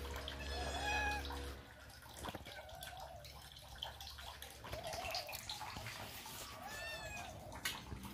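Kittens meowing: about five short, high, arched calls a second or two apart. A low steady hum runs under the first second and a half.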